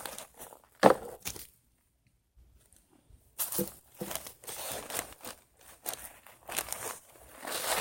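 Garden soil being dug and scooped by hand, an irregular run of scraping and crunching dirt. A sharp knock comes about a second in, then a pause of near silence for nearly two seconds before the scraping resumes.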